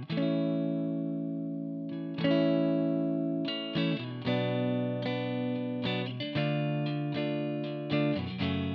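Clean electric guitar playing strummed chords, each left to ring, as picked up by the FiFine K669D dynamic microphone. One long ringing chord opens, then the chords change about every second, with quicker strums near the end.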